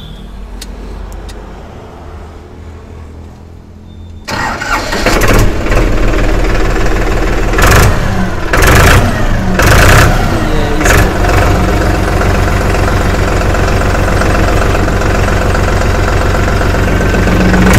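Powertrac Euro 47 tractor's 2761 cc three-cylinder diesel engine starting about four seconds in, then running loudly with several short revs before settling to a steady idle.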